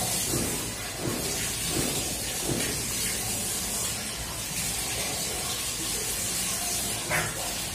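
Soft, regular sounds of a person eating rice and curry by hand, mixing and chewing, repeating roughly every 0.7 seconds for the first few seconds, over a steady hiss. A single sharp click comes near the end.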